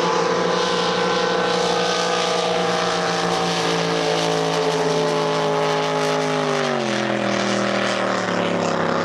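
Racing jet boat engines running flat out on a drag run. The engine note is loud and steady, then falls in pitch about seven seconds in and stays lower.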